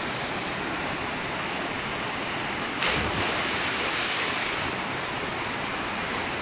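Steady rushing of a waterfall pouring into a gorge pool. About three seconds in there is a brief thump, and the rushing is louder for a second or two after it.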